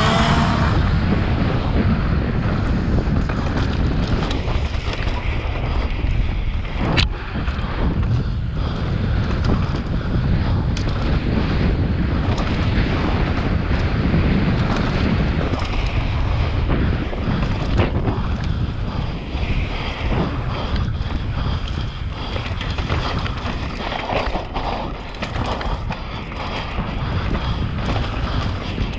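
Wind buffeting the camera microphone while a mountain bike rolls fast down a dirt and rock trail, the tyres crunching and the bike rattling and knocking over bumps. One sharp knock comes about seven seconds in.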